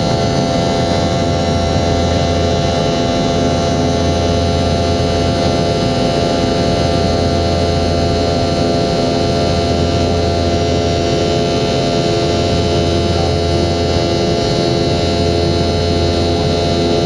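Steady drone of a Boeing 717-200's rear-mounted Rolls-Royce BR715 jet engines at a constant setting, with several steady whining tones over it and a low hum that swells and drops every few seconds.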